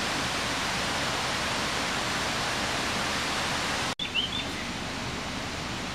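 Steady rushing noise, slightly quieter after a cut about four seconds in, where a few short high chirps sound.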